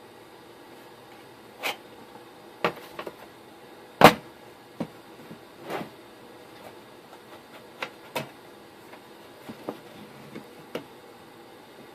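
Irregular knocks and clicks of a metal network-switch case and its parts being handled, the loudest knock about four seconds in.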